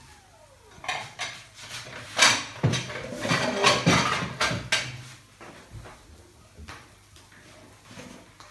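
Dishes and kitchen utensils clattering as a plate is got out and handled: a run of sharp knocks and clinks over a few seconds, the loudest about two seconds in.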